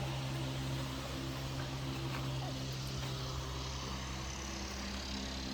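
Steady low electric hum of a running fan motor, one even drone with faint higher overtones that does not change.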